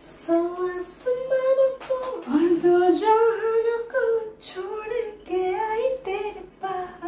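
A woman singing a tune without accompaniment, moving through short held notes.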